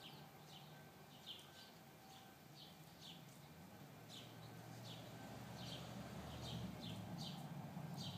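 An animal's repeated short, high chirps, each falling in pitch, coming about once or twice a second, over a faint low hum.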